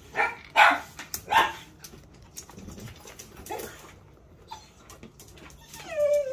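A 13-year-old dog barking, with two loud short barks about half a second and a second and a half in and a softer one later.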